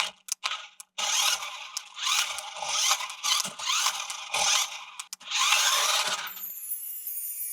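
Plastic toy mechanism clicking and rattling in repeated bursts, like gears ratcheting in a toy RC vehicle being handled. It stops abruptly near the end, and a bright steady hiss follows.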